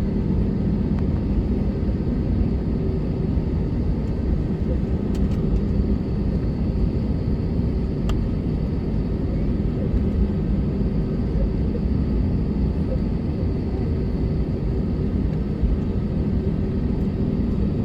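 Steady low rumble inside the cabin of an Airbus A321neo, its CFM LEAP-1A engines at idle thrust as the aircraft taxis toward the runway, with a faint steady hum over it.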